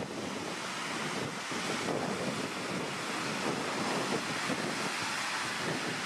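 Wind buffeting the microphone over steady surf washing onto the shore.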